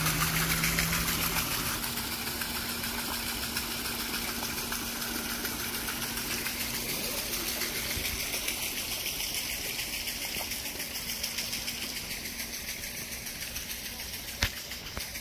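Water splashing and gushing steadily at a small decorative watermill, with a low steady hum for the first few seconds; the water sound gradually grows quieter. A single sharp click near the end.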